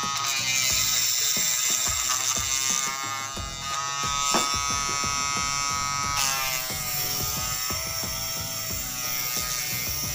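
Small DC motor of a homemade mini lathe whining at high speed as it spins a fishing-float blank, with scraping as the blank is pared with a blade and then sanded. The whine drops a little in pitch about six seconds in.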